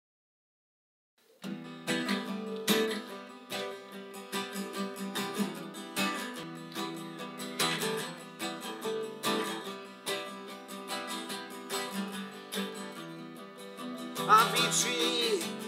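Acoustic guitar intro of strummed chords, starting about a second in after silence. Near the end a man's singing voice comes in over the guitar.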